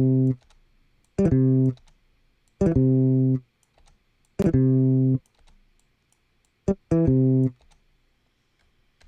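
Logic Pro software instrument sounding short plucked-string notes at a similar low pitch, about five of them, each under a second with silent gaps between. Sharp clicks mark the starts of the notes: the intermittent click of unknown cause that keeps turning up in the session.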